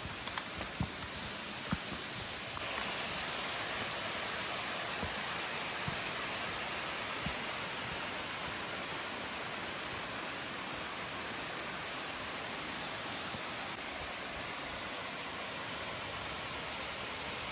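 Mountain stream rushing over a rocky cascade, a steady wash of water that gets louder about two and a half seconds in. A few soft footsteps on the dirt trail in the first couple of seconds.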